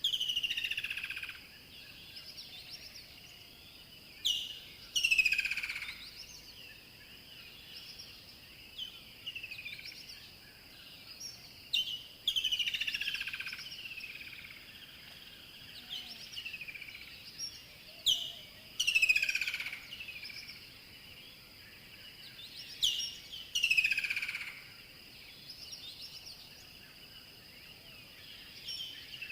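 Rainforest bird song: a bird repeats the same phrase about every five or six seconds, a few sharp high notes and then loud chirps sweeping downward in pitch. A steady high-pitched hum runs underneath.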